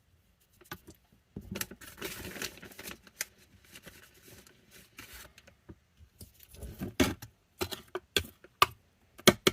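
Hands handling things, with rustling and light clicks and taps: a burst of rustling about one and a half seconds in, and a run of sharper clicks and taps in the last few seconds.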